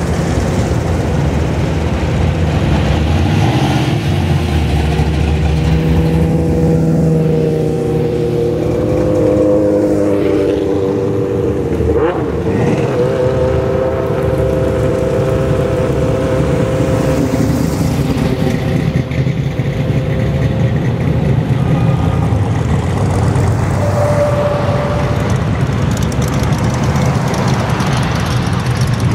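Classic cars driving past one after another, engines and exhausts running with a steady rumble. One engine's pitch slides about a third of the way through as a car goes by, and there is a single sharp click near the middle.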